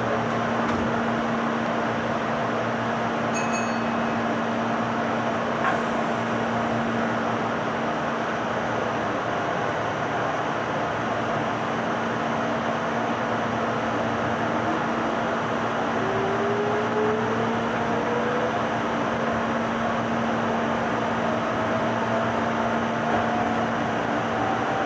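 Meitetsu 6000 series resistor-controlled electric train with a steady hum and a constant low tone. A short high tone sounds about three seconds in and a click about two seconds later. From about fourteen seconds the traction motor whine rises steadily in pitch as the train gathers speed.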